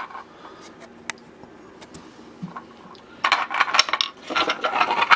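A hard 3D-printed PLA plastic storage box being handled: a couple of light clicks, then from about three seconds in a quick run of plastic clicking and clattering as the box's clip latch is worked and the lid is opened.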